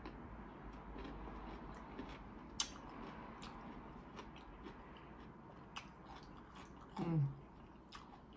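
Close-miked chewing of a mouthful of sausage, rice and cucumber, with scattered small mouth and spoon clicks. A short hum with falling pitch comes about seven seconds in.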